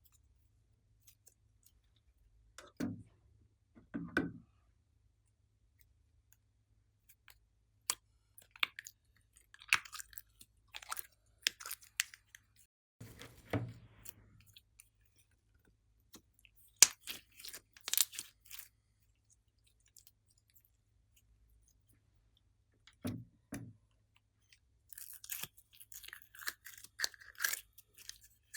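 Glossy slime being pressed, folded and stretched by hand: scattered sticky pops and clicks with a few soft thuds, and denser crackling near the end.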